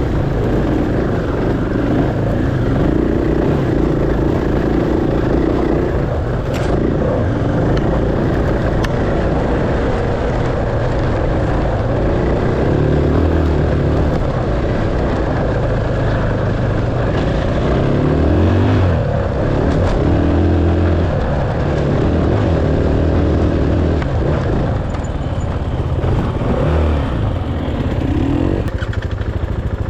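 Enduro dirt bike engine running under riding load, its revs rising and falling again and again.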